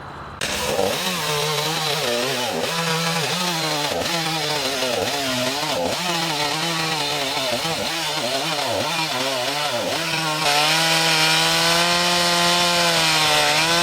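Gas chainsaw cutting through logs, its engine pitch repeatedly dipping and recovering as the chain bogs in the wood. Near the end it holds a steady, louder high rev.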